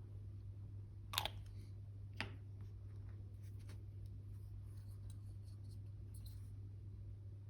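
Small plastic model parts and hobby tools being handled at a workbench: two sharp clicks about a second apart, then a run of faint light ticks, over a steady low hum.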